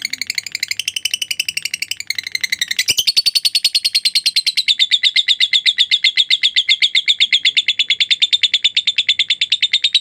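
Lovebird singing its long 'ngekek' chatter: a fast, unbroken train of high, sharp notes, about ten a second, that changes about three seconds in into a longer, steadier run.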